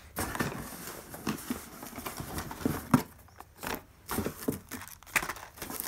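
Handling of packaging and plastic-boxed puzzles being taken out of a shipping box: rustling with a string of irregular light clicks and knocks.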